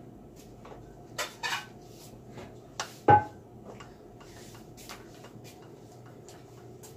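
Four sharp knocks and clatters of kitchenware, the loudest a clink about three seconds in that rings briefly, over a faint steady hum.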